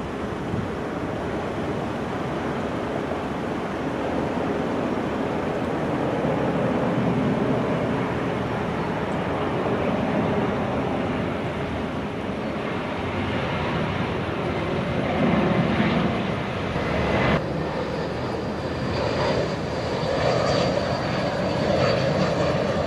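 Airbus A320-family twin-engine airliner on landing approach with its gear down, its jet engines making a steady rushing noise that grows louder as it nears. A high fan whine joins in over the last few seconds.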